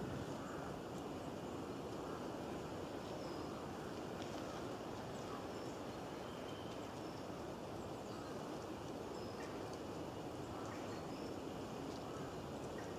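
Steady outdoor forest ambience, an even background noise, with faint scattered bird chirps.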